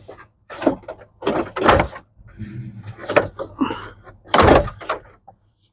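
Hard plastic car dashboard trim being pulled loose and handled: a string of irregular knocks and clatters, the loudest about four and a half seconds in.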